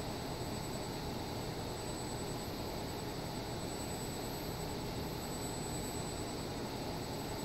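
Steady whir and hiss of running machinery, with two faint high-pitched steady tones over it.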